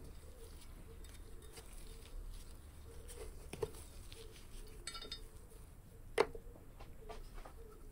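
Faint metallic clicks and clinks of a spanner turning two locked nuts to unscrew steel exhaust studs from a ZX-7R cylinder head. There is a short rattle near the middle and a sharper click about six seconds in, over a faint steady hum.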